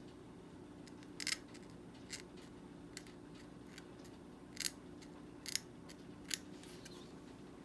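Gracey 13/14 curette's metal blade scraping in short activation strokes against a plastic typodont tooth, about six brief scrapes spaced roughly a second apart, the loudest just over a second in. A faint steady hum runs underneath.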